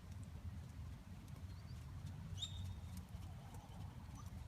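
Faint outdoor bird calls, a short chirp and then a brief whistled call about halfway through, over a steady low rumble.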